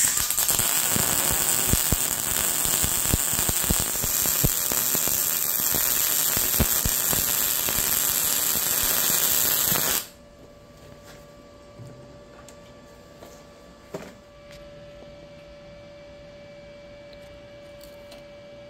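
Arccaptain MIG200 MIG welding arc at 169 amps laying a bead: a loud, steady crackling sizzle that cuts off suddenly about ten seconds in. After that comes a much quieter steady hum, with a single click a few seconds later.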